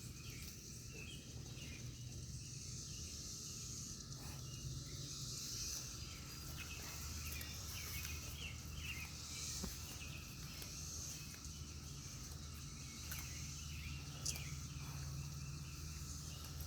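Cicadas buzzing in a high, continuous chorus that swells and fades every few seconds.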